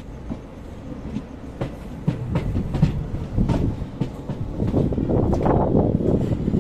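Passenger train coach running along the track, heard from aboard: a steady low rumble with irregular clicks and knocks from the wheels over the rails. It grows louder about halfway through.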